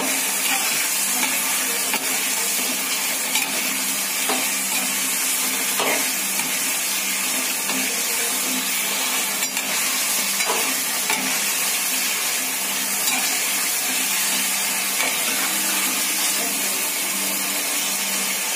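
Chicken pieces sizzling steadily in hot oil in a metal kadhai, stirred with a perforated metal spatula that scrapes and knocks against the pan now and then.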